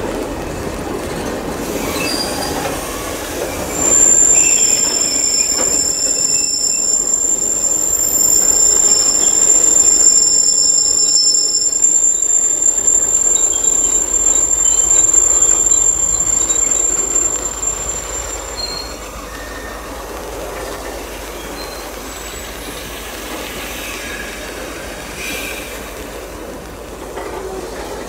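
Freight train of empty wagons rolling slowly round a curve, its wheel flanges squealing on the rail. A high steady squeal, joined by a second, lower one, sets in about four seconds in and fades after about sixteen seconds, over the rumble of the wagons.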